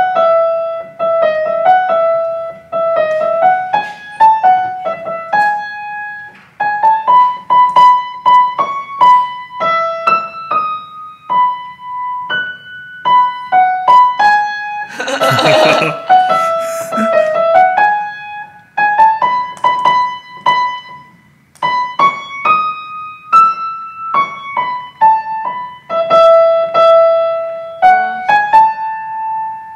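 Yamaha upright piano played as a mostly single-note melody, picked out by ear with pauses and some wrong notes. A brief burst of noise comes about halfway through.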